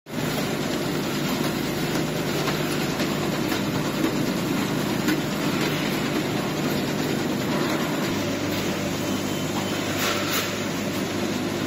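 Sachet-feeding packaging line running: a steady mechanical hum from the conveyors and feeders, with a few faint light clicks.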